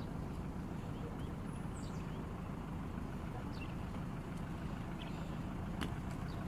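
Steady low rumble of an idling passenger van's engine.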